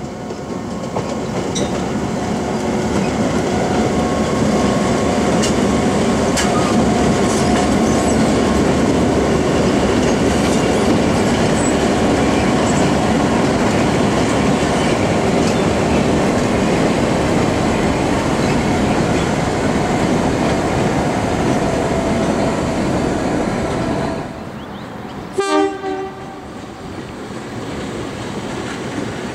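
Heritage diesel-electric locomotives in Victorian Railways livery passing close by, their engines running loudly alongside the clatter of wheels on the rails. About 24 s in the sound drops to a quieter background, with a very short, sharp pitched blip about a second and a half later.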